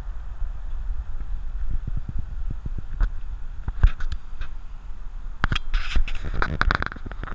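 Handling noise: a run of knocks, bumps and rubbing as a camera is carried and repositioned, densest a little over five seconds in, over a steady low rumble.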